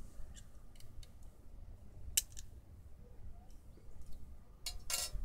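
Small metallic clicks and ticks from hands working the steel-wire string onto the pulleys of a miniature compound crossbow, with a sharp click about two seconds in and a louder short metallic rattle near the end.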